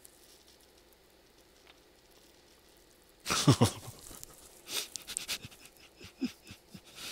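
A man laughing: quiet for about three seconds, then a loud burst of laughter followed by a string of shorter, breathy chuckles.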